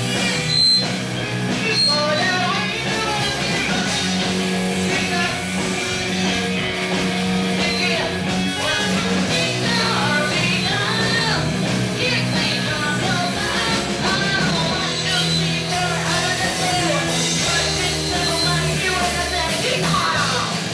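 Live rock band playing: electric guitar and electric bass with a woman singing through a megaphone.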